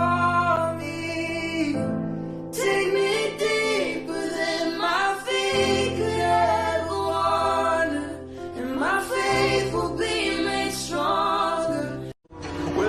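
Background music with singing over sustained bass notes that shift every few seconds, cutting out briefly near the end.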